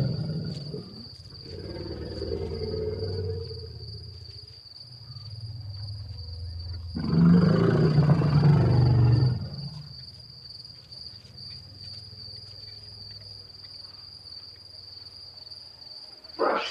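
African elephants giving deep rumbling calls: one in the first second, a longer one that follows, and the loudest from about seven to nine and a half seconds in. Under them runs a steady high insect trill, and a short sharp sound comes near the end.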